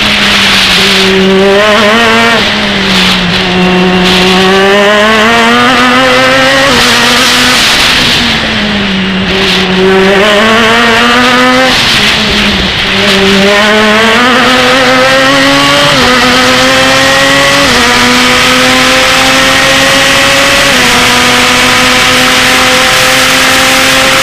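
Open-wheel race car engine heard from the onboard camera, its pitch rising under acceleration and falling as the car brakes and downshifts for several corners. In the second half it pulls along a straight with upshifts, the pitch stepping down briefly three times.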